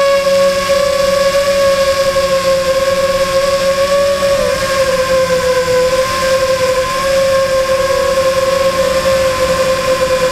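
FPV drone's electric motors and propellers whining steadily, heard through its onboard camera, the pitch wavering slightly with a brief dip about four and a half seconds in.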